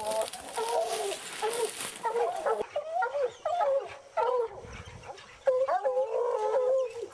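Hounds baying repeatedly at a treed mountain lion: a run of short and drawn-out bawls from several dogs, overlapping toward the end.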